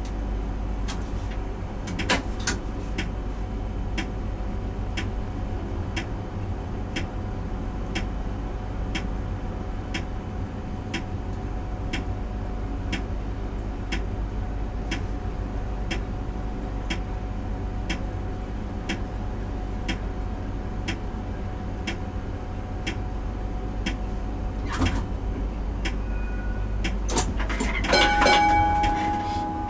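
Trams and road traffic at a city intersection: a steady low rumble with a faint steady hum, and sharp ticks about once a second. About two seconds before the end comes a louder squeal with several tones.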